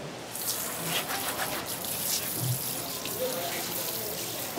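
Tap water spraying from a hose nozzle onto a plastic cutting board as a filleting knife and gloved hand are rinsed, a steady hiss that starts just after the beginning.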